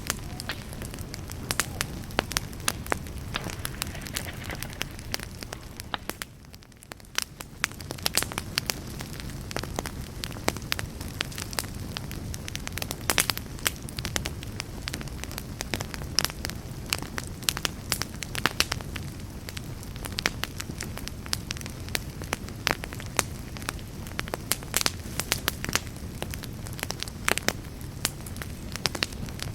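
Wood campfire burning, with frequent sharp crackles and pops over a steady low rush of flame. It dips briefly quieter about six seconds in.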